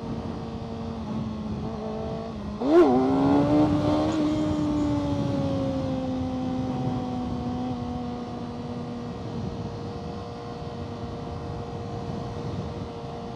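Kawasaki ZX-6R 636 inline-four engine running steadily under way. About three seconds in the throttle is opened hard: the revs jump and fall in quick steps, then ease back over a few seconds to a steady cruise. The rider is accelerating to check that the freshly adjusted clutch cable doesn't let the clutch slip.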